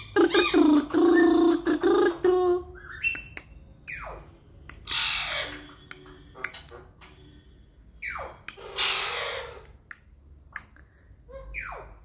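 Pet parrot vocalizing: a pitched, wavering, talk-like babble for the first couple of seconds, then harsh squawks that drop in pitch, about four, eight and eleven seconds in.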